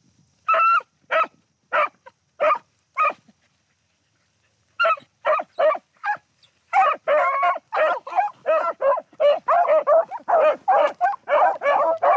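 Beagles baying on a rabbit's trail. Five single barks come first, then a short pause, then more voices join in an overlapping run of about two barks a second. This is the sound of the pack running the rabbit by scent.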